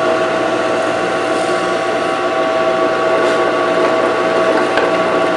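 WEN 4214 variable-speed drill press running steadily at about 1,270 RPM, its motor and spindle giving an even hum with a fixed whine, as the bit drills into a pine board. A couple of light clicks sound as the board is shifted on the table, around three and five seconds in.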